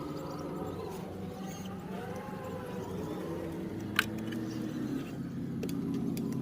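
RC crawler's electric motor and gearbox whining steadily, the pitch shifting a few times as the throttle changes, with one sharp click about four seconds in.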